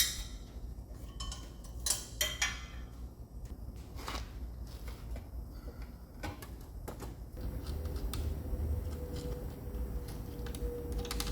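Metal tools and engine parts clinking and clanking in scattered single knocks during a teardown, then a steady hum with one held tone from about seven seconds in.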